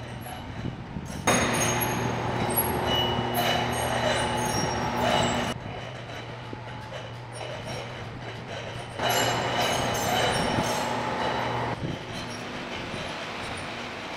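Powered hangar door lifting open: a steady motor hum with metal grinding and high squeals from the moving door, loudest in two stretches, the first about a second in and the second near the two-thirds mark, stopping near the end.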